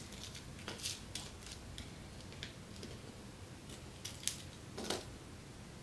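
Sparse light clicks and taps as a small plastic tub of glass confetti, very thin pieces of glass, is opened and handled by fingers, over a low steady room tone.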